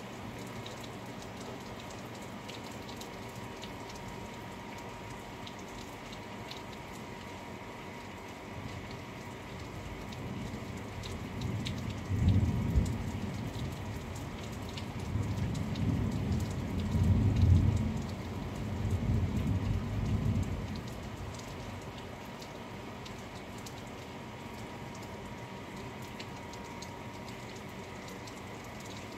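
Steady rain falling, with scattered drops ticking. About nine seconds in, a roll of thunder builds into several low rumbling peaks over about ten seconds, then dies away back to the rain.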